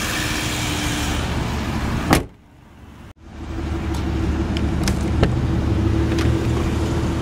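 Aston Martin Virage's 5.9-litre V12 idling steadily. About two seconds in the hood is shut with one sharp slam, the sound drops out briefly, then the idle resumes with a few light clicks as the door handle is pulled and the door opened.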